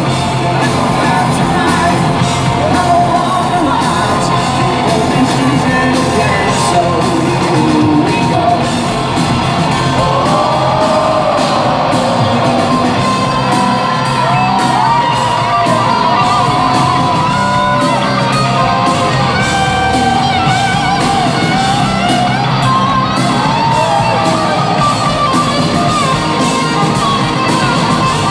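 Live hard rock band with singing, electric guitars and drums, recorded from the audience with shouts from the crowd. From about ten seconds in, a lead electric guitar plays bending, gliding notes over the band.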